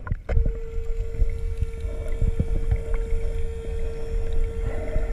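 Underwater sound of a cave dive heard through the camera's housing: a constant low rumble with scattered clicks and knocks, and a steady hum that comes in just after the start.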